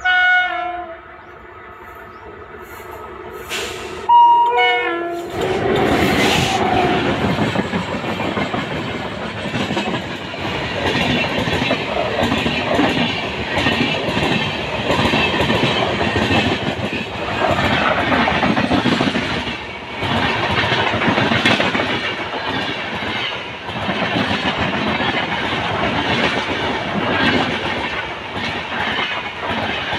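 Indian Railways passenger train with an electric locomotive: a short horn blast as it approaches, then a second horn blast that steps in pitch about four seconds in. From about five seconds in the train runs past close by, its wheels beating a steady clickety-clack over the rail joints under a loud, continuous rumble.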